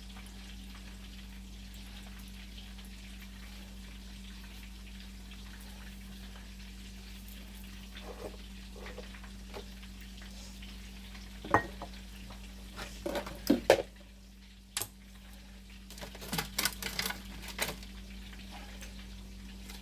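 Chicken cutlets frying in oil, a steady sizzle, with sharp clinks and clatter of kitchen utensils and dishes a little past halfway and again near the end.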